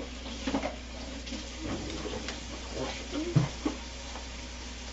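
Scattered light knocks and clicks of kitchen things being handled on a counter, with one louder thump about three and a half seconds in, over a steady low hum.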